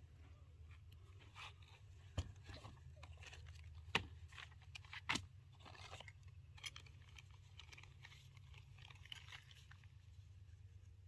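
Handling noise: scattered crunching and rustling with a few sharp knocks, the loudest about four and five seconds in, over a low steady hum.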